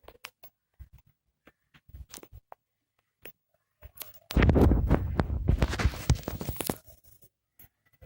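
Handling noises: scattered light clicks and taps, then a loud rustling scrape lasting about two and a half seconds, starting about four seconds in.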